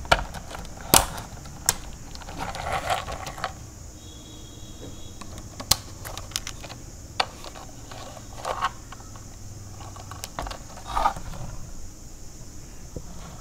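Hard plastic parts of a toy car-transporter truck clicking, tapping and rattling as they are handled and fitted together, with half a dozen sharp clicks spread through and some rustling in between.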